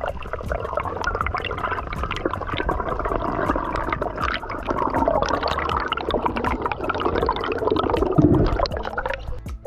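Underwater bubbling and gurgling of water against a submerged camera as the diver swims up, loudest about eight seconds in as a burst of bubbles rushes past.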